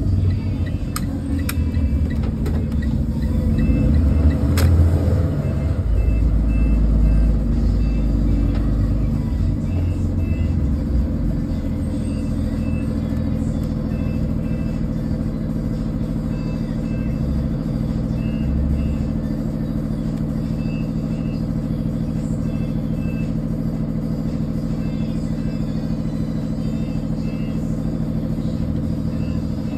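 School bus diesel engine running at road speed, heard from the driver's seat: a deeper, louder rumble for the first several seconds, then a steady drone. Short faint high beeps repeat at irregular intervals through the second half.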